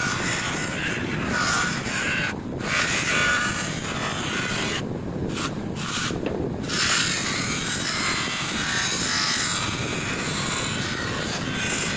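Electric polishing machine running steadily, its buffing wheel rubbing against a motorcycle footpeg to polish the metal. The high rubbing hiss drops out briefly a few times, about two seconds in and again around five to six seconds in.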